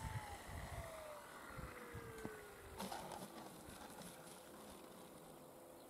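Electric motor and propeller of a Dynam Waco radio-controlled biplane winding down as it lands, a thin whine falling steadily in pitch, with a brief scuffing noise about three seconds in as it touches down on the grass. Low gusts of wind rumble on the microphone early on.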